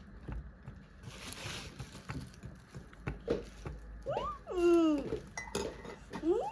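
Light clinks and taps of dishes and cutlery at a table, then two high vocal calls that rise and fall in pitch, the first about four seconds in and the second right at the end; the first call is the loudest sound.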